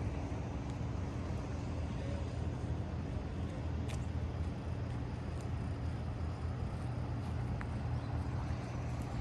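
An engine running steadily at idle, a low even hum that stays the same throughout, with a few faint ticks.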